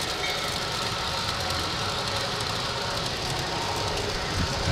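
LGB G-scale model trains running on the deck layout: a steady rumble of their motors and wheels on the track.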